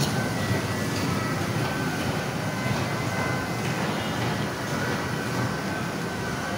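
Steady low rumble and hum of a busy indoor play area, with a faint steady high tone above it.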